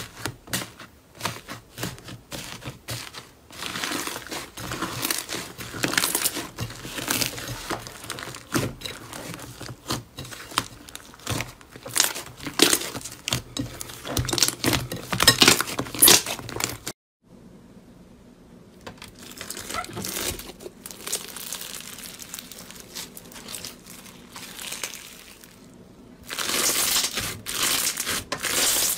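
Hands squishing, kneading and stretching slime, with dense wet crackling and popping. The sound stops suddenly about seventeen seconds in, goes on more softly, and turns to louder crackling near the end as a bumpy, textured slime is squeezed.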